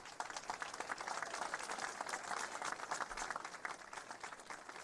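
Audience applause: many hands clapping, swelling to a peak about halfway through and thinning out near the end.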